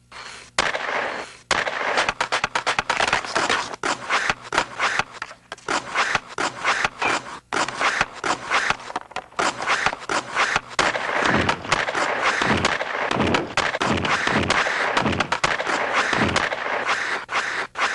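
Ice hockey stick blade tapping a puck in rapid stickhandling, a dense run of quick clicks, with skate blades scraping the ice. In the second half a series of about seven sounds falls in pitch, one every half second or so.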